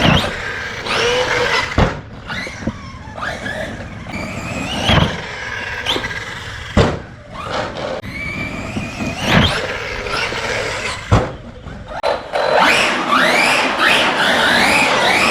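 Redcat Kaiju EXT RC truck being driven hard on Arrma Copperhead 2 tyres. Its electric motor whines up and down in pitch with the throttle over tyre and gravel noise, with several sharp knocks from jumps, landings or bumps. The last few seconds are the loudest, with quick repeated rising whines.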